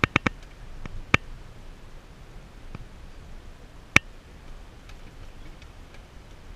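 Inside a vehicle rolling slowly over a rough dirt road: a low, steady rumble with scattered sharp ticks and knocks. A quick run of ticks comes at the start, then single louder ones about a second in and about four seconds in.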